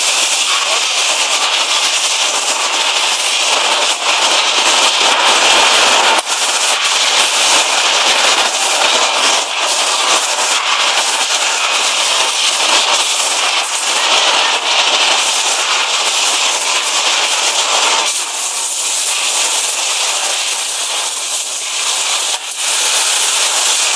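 RUBBMACH hydraulic press cycling: a loud, steady hissing and crackling machine noise with no clear tone. The sound shifts to a thinner, brighter hiss about eighteen seconds in.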